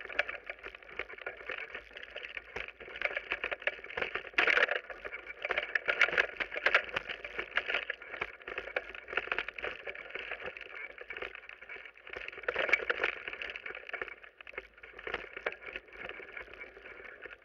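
Mountain bike rattling over a rough, wet, stony trail at downhill speed, picked up by a camera on the bike or rider: a steady rush of tyre and riding noise with constant clattering and many short knocks from bumps.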